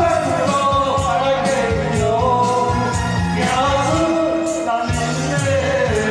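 A man singing a song into a microphone over instrumental accompaniment with a steady beat.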